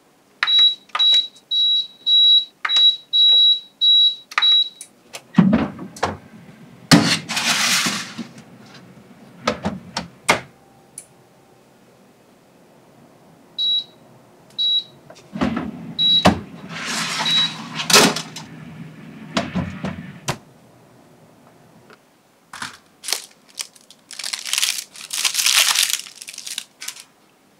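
Countertop electric oven: a run of short electronic beeps as its controls are set, then metal tray clatter and knocks from the oven door and rack. About halfway through come four more single beeps, with more door and tray clatter. Near the end, parchment paper crinkles as it is handled.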